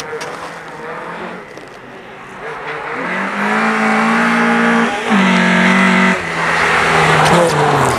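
Volvo 240 rally car's engine at high revs, growing louder from about three seconds in as the car comes closer. The revs drop briefly twice near the middle and fall lower near the end.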